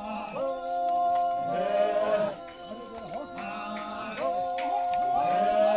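Voices singing together, holding two long notes with sliding, wavering pitch between them.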